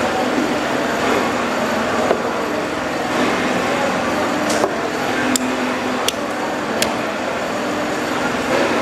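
Large cleaver-style knife chopping through a chunk of mahi-mahi on a chopping block: four sharp chops about two-thirds of a second apart, a little past the middle, over steady background noise.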